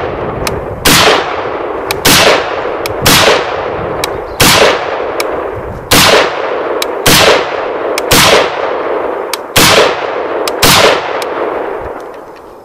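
Short-barrelled AK-pattern firearm fired in slow semi-automatic fire: nine loud shots about a second apart. Each shot is followed by a long rolling echo. The echo fades out after the last shot, near the end.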